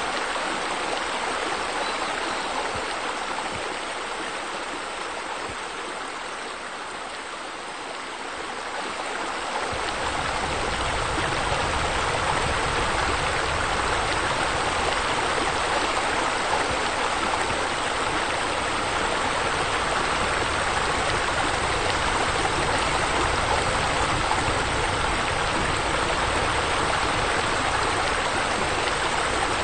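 Steady rush of water falling and splashing into a pool, as from a wall waterfall. About ten seconds in it grows louder and deeper, then holds steady.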